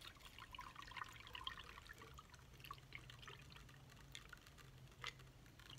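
Blue lemonade being poured from a plastic bottle into a glass jar full of ice: a faint trickle over the ice with many small ticks, and a sharper click about five seconds in.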